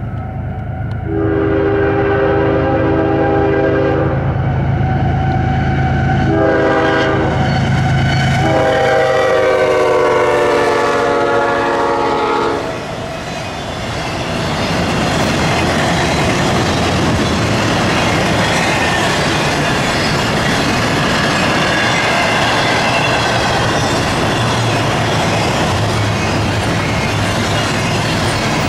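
Diesel freight locomotive's multi-chime air horn sounding for the grade crossing: a long blast, a short one, then a longer one, over the drone of its engine. After that, double-stack container cars roll past with steady wheel rumble and clickety-clack over the rail joints.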